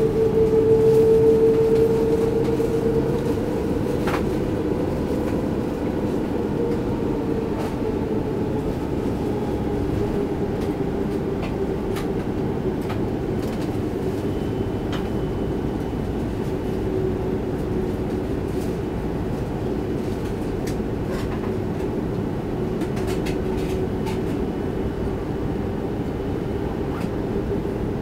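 Airbus A330-300's engines heard from inside the passenger cabin: a steady hum with a steady whine that is loudest in the first couple of seconds, plus a few faint clicks and rattles.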